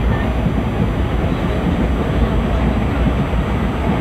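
Steady running noise of an ICF passenger coach on the move, heard from a window seat inside the coach: a deep, even rumble with no distinct wheel clicks.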